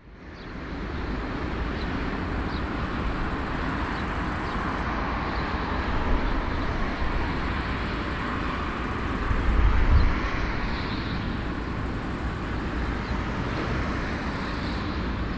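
Airbus A340-313 jet airliner taxiing, its four CFM56 turbofan engines giving a steady rushing noise over a low rumble. The sound fades in over the first second and swells briefly about ten seconds in.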